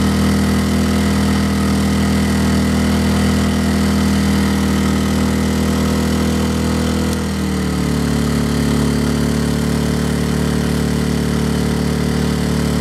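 Westinghouse WH2400i inverter generator running steadily under the load of an RV rooftop air conditioner. About seven seconds in, its engine speed drops a little and settles at the lower pitch.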